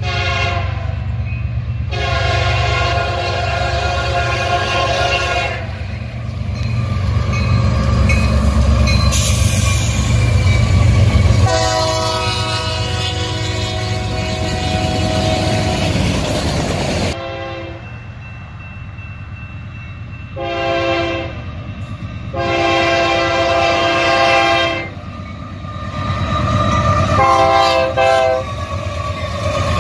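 Union Pacific GE C45ACCTE diesel locomotive's air horn sounding six blasts for a grade crossing, long blasts of several seconds mixed with short ones, with a gap of about six seconds in the middle. Under the horn, the locomotives and freight cars passing make a steady low rumble.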